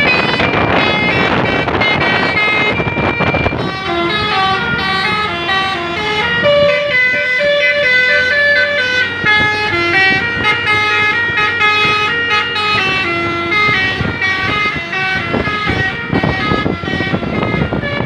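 Basuri 'telolet' multi-tone bus air horn playing a tune of short stepped notes at changing pitches, clearest in the middle. A loud noisy rush fills the first few seconds and returns near the end.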